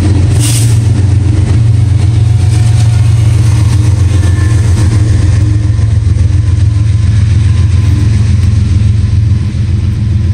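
Diesel locomotive engines at the rear of a Norfolk Southern freight train passing, a heavy, steady low rumble that eases off slightly near the end.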